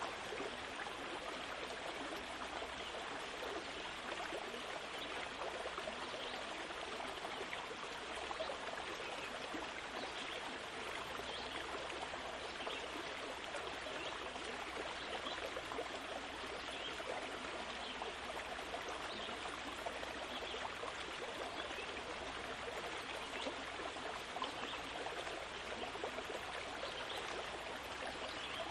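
A steady, even rushing noise with no pitch or rhythm, the same throughout.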